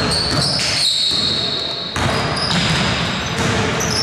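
Basketball game in a large gym: a ball being dribbled on the hardwood court, basketball shoes squeaking on the floor in drawn-out high squeals through the first half, and players' voices echoing in the hall.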